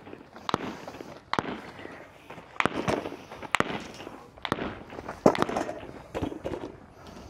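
Gunshots on an outdoor shooting range: about nine single sharp cracks at irregular intervals, some close together and some a second or more apart.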